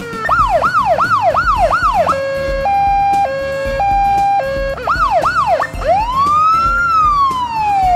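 Electronic police car siren cycling through its modes: about five fast yelp sweeps, then a two-tone hi-lo alternation, a few more yelps, and near the end one slow wail that rises and then falls.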